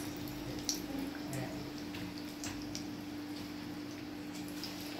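Besan-battered potato chops deep-frying in hot oil in a wok-like pan, a steady sizzle with scattered small crackling pops, over a steady low hum.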